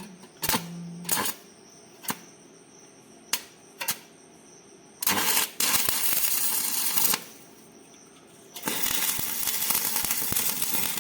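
Electric arc welding on iron: a few short crackles as the arc is struck, then two steady runs of crackling and sizzling, each about two seconds long, the second running on to the end.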